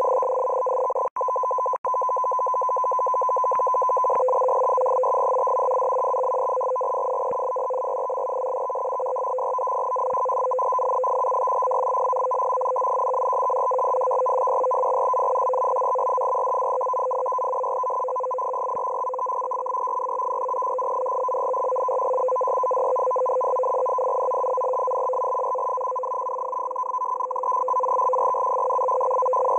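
Shortwave radio signal logged as Russian M42b on 14380 kHz, heard through a web SDR receiver in CW mode: a steady, dense warble of rapidly keyed tones, with two brief dropouts about a second in.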